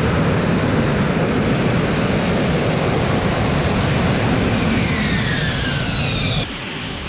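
AV-8B Harrier II jump jet's Pegasus turbofan, a loud jet roar as the jet hovers and comes down in a vertical landing. Near the end a whine falls in pitch. The roar then cuts off suddenly, about six seconds in, to a quieter wind-like hiss.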